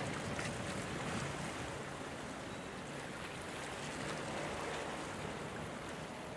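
Steady harbour ambience of wind and water noise, with a faint low engine hum from the ship and tugboats working in the harbour.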